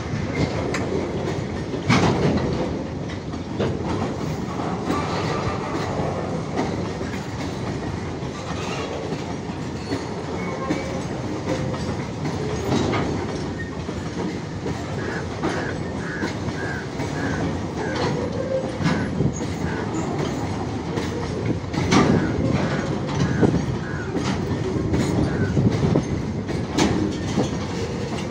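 Bulk tank wagons of a long freight train rolling past on the adjacent track: a steady rumble of steel wheels clattering over rail joints, with occasional sharp clanks. Midway there is a run of short high squeaks, about two a second, from the wheels.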